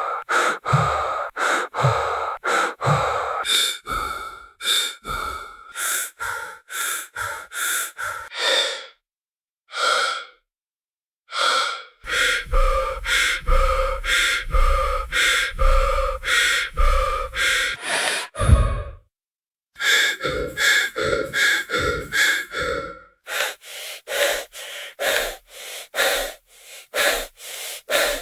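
Heavy, rapid horror-style human breathing, quick in-and-out breaths about two or three a second, broken by a couple of brief pauses. For a few seconds in the middle a deep low rumble sits underneath, ending in a low thud.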